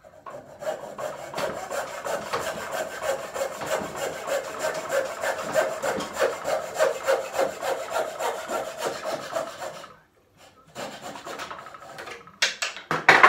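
Coping saw cutting out the waste from the slot of a corner bridle joint in timber, with steady back-and-forth strokes. The sawing stops about ten seconds in, followed by a few lighter scrapes and a sharp knock near the end.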